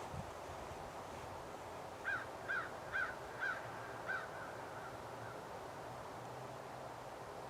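A bird calling five times in quick succession, short harsh calls about half a second apart, over a steady rush of wind.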